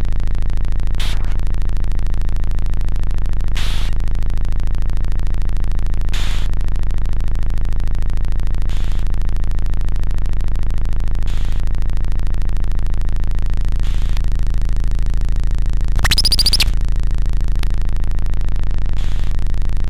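Electronic soundtrack music: a steady low synthesizer drone with short hissing swishes about every two and a half seconds, and one louder, brighter warbling burst a little past the middle.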